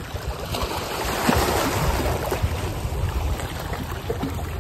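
Wind buffeting the microphone with a low, uneven rumble, over the hiss of small waves washing against the rocks of a jetty, swelling a little in the middle.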